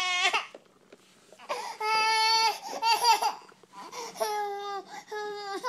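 Baby crying in wailing bursts: one brief cry, a pause of about a second, then a long wail followed by several shorter ones.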